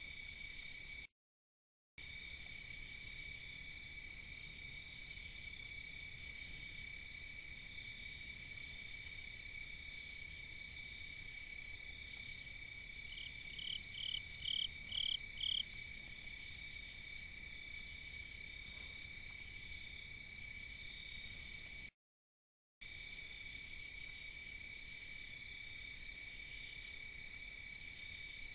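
Night insect chorus: a steady high-pitched trill with regular chirps repeating over it, and a louder run of five quick calls about halfway through. The sound cuts out completely twice for about a second.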